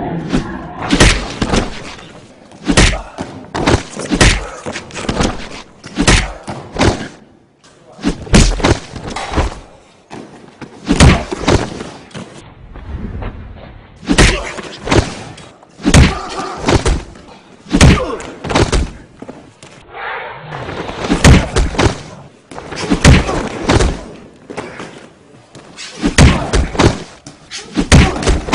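Bodies and feet of stunt fighters hitting padded floor mats during kicks, throws and falls: a long irregular run of heavy thuds and slams, about one a second, echoing in a large hall.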